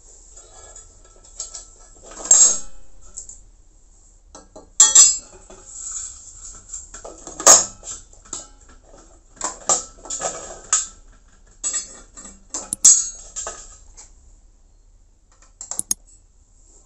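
Hard plastic and metal parts of a PowerBeam M5 400 dish antenna being handled: irregular clicks, knocks and clatter as the radio feed unit, dish and bracket are picked up, moved and set down on a tile floor.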